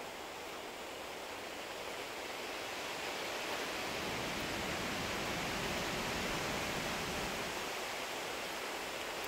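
Steady rushing outdoor background noise, with no distinct crackles or clicks, swelling a little through the middle.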